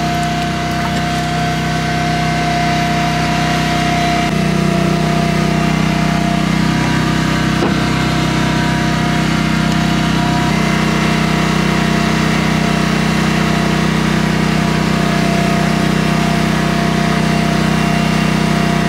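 Boat engine and hydraulic line hauler running steadily while a halibut longline is hauled aboard. The low hum shifts in pitch about 4 seconds in and again about 10 seconds in.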